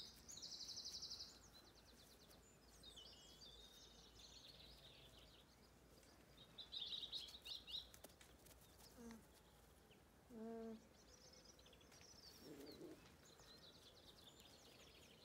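Songbirds singing faintly: quick high trills and chirps that come and go throughout. About ten seconds in there is a brief low hummed note.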